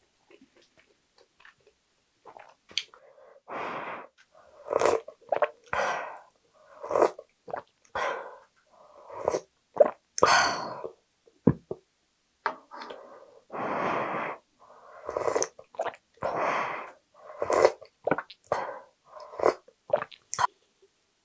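Close-up mouth sounds of a person slurping ramen broth from a wooden ladle, taking repeated sips about once a second, with a few sharp clicks between them.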